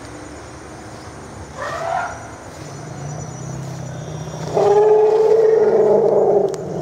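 Wild Asian elephant trumpeting: a short rising call about a second and a half in, then a longer, louder trumpet held for about two seconds near the end.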